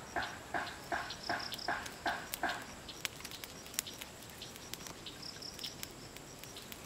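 An animal calling in a fast, even series of about seven short notes, between two and three a second, that stops about two and a half seconds in. After it, faint scattered crackles and clicks from a small wood fire.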